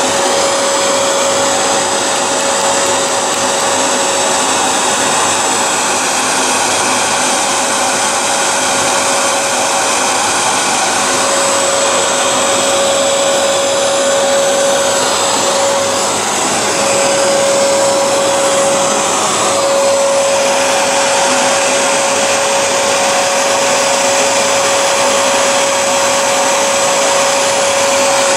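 Vacuum cleaner running steadily: a constant rush of air with a steady motor whine that wavers briefly about halfway through.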